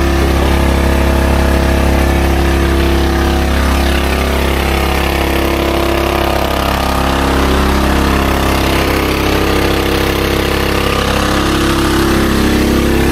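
Small boat engine running steadily at an even speed, a loud, continuous low hum.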